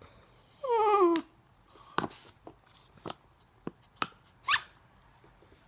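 A dog biting and mouthing a spiky rubber ball toy held in a hand: a short falling squeal about a second in, then a series of sharp irregular clicks of teeth on the rubber.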